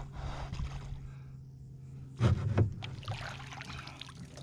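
Water splashing at the side of a small boat as a big redfish thrashes and is lifted out of the water. The loudest moment is a short heavy splash a little over two seconds in, followed by dripping and sloshing.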